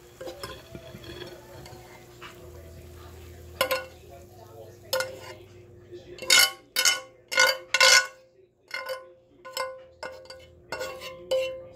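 Metal fork scraping and tapping against a ridged nonstick grill pan as stir-fried noodles are pushed off it onto a plate. Soft scraping at first, then a run of sharp clinks from about five seconds in.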